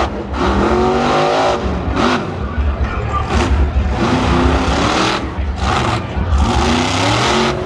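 Monster truck engine revving hard again and again, its pitch climbing and dropping with each burst of throttle over a heavy low rumble.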